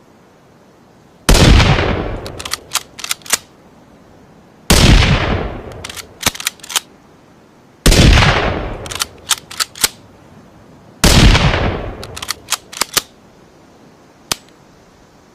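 Four rifle shots from a Ruger American bolt-action rifle sound effect, about three seconds apart, each with a ringing tail of about a second. Each shot is followed by a quick run of sharp metallic clicks, typical of the bolt being worked to chamber the next round. One lone click comes near the end.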